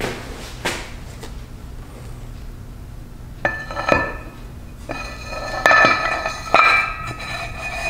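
Metal parts knocking together: a handful of sharp clinks starting about three and a half seconds in, each leaving a ringing metallic tone.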